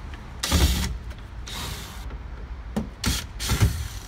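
Cordless drill/driver running in several short bursts, backing out the screws that hold a factory door speaker.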